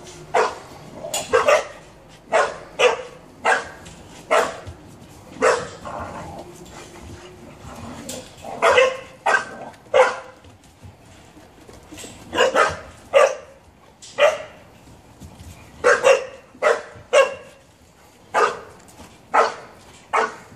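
Young dogs barking during rough play: short, sharp barks at irregular intervals, some single and some in quick pairs or threes.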